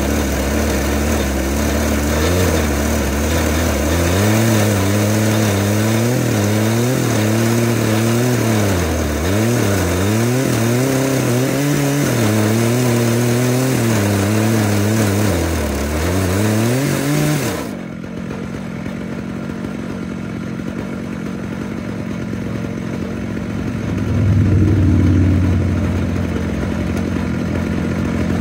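Chainsaw on an Alaskan chainsaw mill ripping a green ash log: the engine runs under load, its pitch repeatedly dipping and recovering as the chain bites. About two-thirds of the way through the throttle is let off and the saw drops to a lower idle, with a brief rev near the end.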